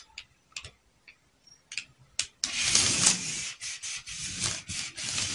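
A few light taps and clicks of a ruler and marker on pattern paper, then from about halfway in a continuous rustling and rubbing as the large sheet of drafting paper is handled and slid under the hands.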